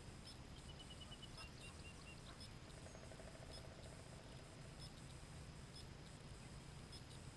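Near silence: faint outdoor background with two short runs of faint, rapid high chirps in the first two seconds and a faint low rattle around three to four seconds in.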